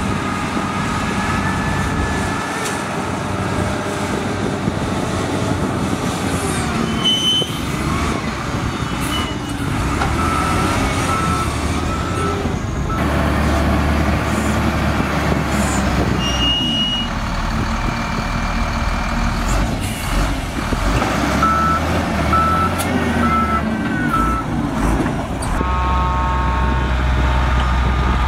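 Diesel engine of a DISD wheel loader working in sand, with a reversing alarm giving two spells of short, evenly spaced beeps, about ten seconds in and again about twenty seconds in. Near the end, a dump truck's engine runs steadily as its bed tips.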